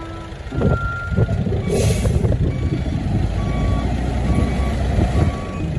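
Truck sounds: a heavy engine running, a short air-brake hiss about two seconds in, and reversing beeps about twice a second in the second half.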